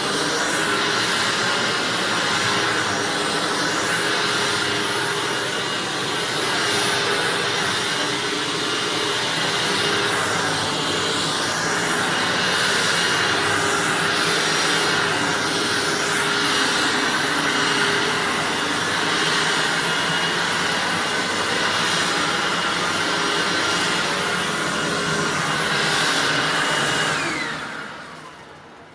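Hoover WindTunnel self-propelled bagged upright vacuum cleaner running steadily on carpet. Near the end it is switched off and its motor winds down with a falling whine.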